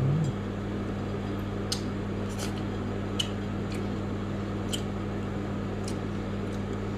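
Steady low electrical hum, with a handful of faint, light clicks of wooden chopsticks against a ceramic plate.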